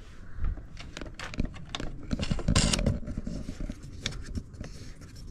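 Handling noise from the aluminium arms of a Thule Elite G2 bike rack being fitted to its wall-bar mount: a run of clicks and knocks, with a louder scrape about two and a half seconds in, as the plastic clamp knob is worked.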